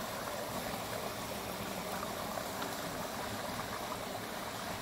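Stream water flowing, a steady rush.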